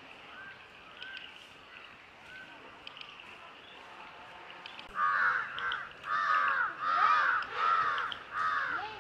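A crow cawing: a few faint caws, then from about halfway through a run of five loud, harsh caws in quick succession.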